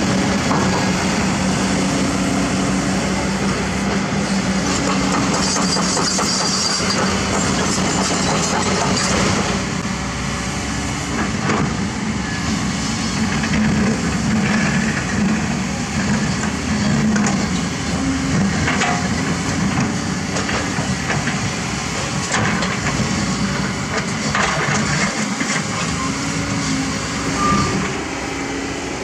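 Diesel engines of hydraulic excavators running under load, a steady loud drone; about ten seconds in the level drops slightly and the sound becomes a Kobelco SK200 excavator's engine working beside a dump truck.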